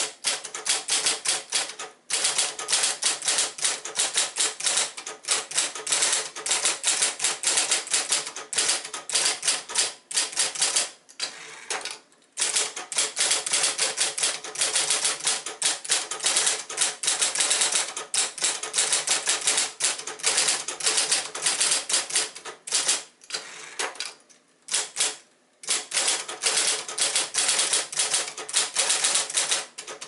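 1971 Royal Apollo electric typewriter, a lightly motorized machine, being typed on quickly: a dense run of sharp key and typebar strikes, broken by a few short pauses.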